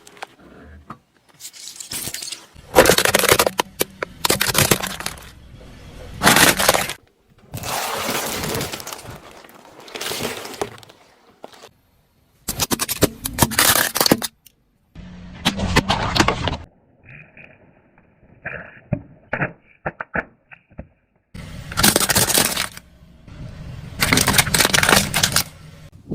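Objects crunching, cracking and breaking as they are crushed under a car's tyre, in a series of separate bursts of one to two seconds each, cut one after another. In the middle comes a quieter run of short, sharp crackles.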